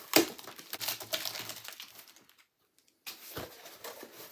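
Sellotape being ripped off a cardboard box, a sharp rip just after the start followed by crackly rustling of tape and cardboard. After a short pause, a knock and rustle as the cardboard flaps are pulled open.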